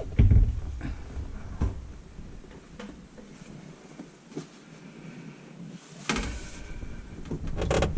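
Knocks and clunks of parts and tools being handled inside a kitchen sink cabinet, loudest right at the start and again near the end, with a short rustle about six seconds in.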